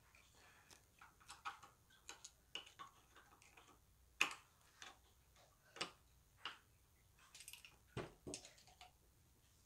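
Faint, irregular small metallic clicks and taps as a screwdriver and the parts of a Colt 1860 Army revolver's frame are handled during reassembly. The sharpest clicks come about four seconds and eight seconds in.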